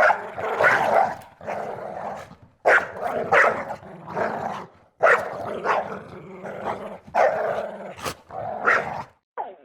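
Dog barking and growling in three takes that each stop abruptly, with a sharp click about eight seconds in.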